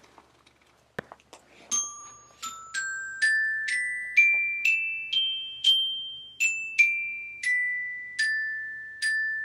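Small metal-bar glockenspiel struck with a ball-headed mallet, one note at a time about twice a second, climbing a scale and then stepping back down, each note ringing on and fading. A faint tap comes just before the first note.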